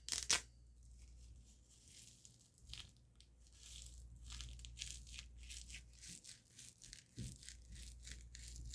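Soft, quick rustling strokes close to a sensitive microphone, made by hands gripping and rubbing in an ASMR trigger. They come sparsely at first, then settle into an even run of about three to four a second.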